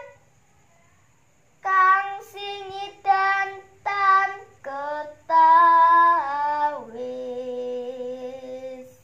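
Young female voice singing a Javanese tembang macapat solo and unaccompanied. After a pause of about a second and a half come several short sung syllables, then longer held notes that step down in pitch, the last one held until near the end.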